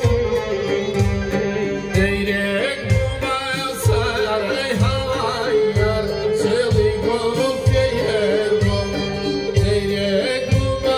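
Live Kurdish folk music: two violins and an oud play the melody over keyboard accompaniment with a steady beat about once a second, and a man's singing voice joins in on microphone partway through.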